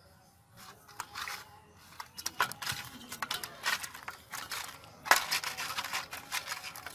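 A hand rubbing turmeric and salt into whole koi fish (climbing perch) on a metal plate: scaly fish scraping and rubbing against the plate in a run of irregular, scratchy strokes that start about half a second in.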